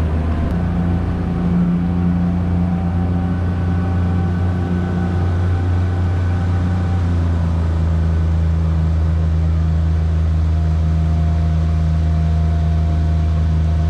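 Tour boat's outboard motor running at a steady cruising speed: a constant low drone over the hiss of water along the hull.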